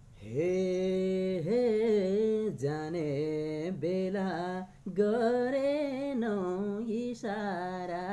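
A man singing a slow Nepali song solo with no accompaniment, starting a moment in with long held, slightly wavering notes, in three or four drawn-out phrases with short breaks between them.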